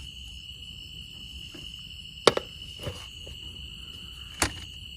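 A few sharp metal clicks and knocks as a folding aluminium camp table is handled and unfolded, the loudest about two seconds in and another near the end. A steady high insect trill runs underneath.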